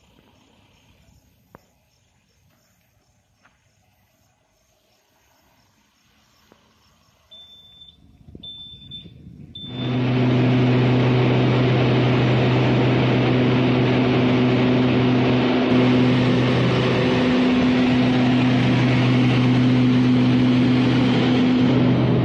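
A quiet night with a few faint ticks, then three short high beeps. About ten seconds in the sound jumps to the loud, steady cabin noise of a Beechcraft King Air twin turboprop in flight: a constant rush with a steady low propeller hum beneath it.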